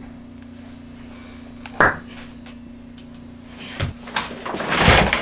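A sharp slap-like hit about two seconds in, then a couple of knocks and a louder noisy rush near the end, over a steady low hum.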